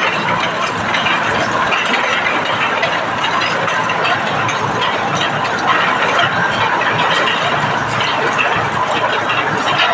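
A grinder machine running: a loud, steady mechanical noise with a continuous rattle of small clicks.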